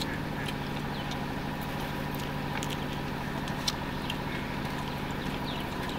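A motor running steadily, a low even hum, with scattered light clicks and one sharper click about halfway through.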